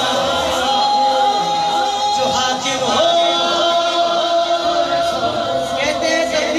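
Unaccompanied male voice singing a naat, an Urdu devotional poem, over a public-address system with long held notes, other voices joining in.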